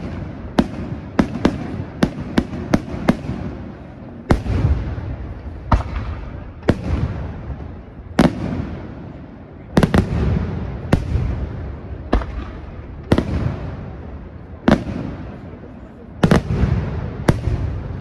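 Aerial firework shells bursting: a quick run of sharp bangs in the first few seconds, then a bang about once a second, with a low rolling rumble between them.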